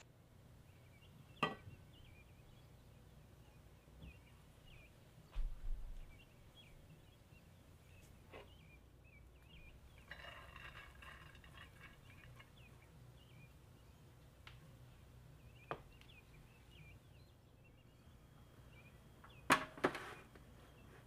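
Quiet kitchen handling sounds: scattered single clicks and clinks of cookware, and a soft rustling pour of rice onto a ceramic platter about ten seconds in. Near the end comes the loudest sound, a pair of knocks as a metal roasting pan on a wire rack is handled.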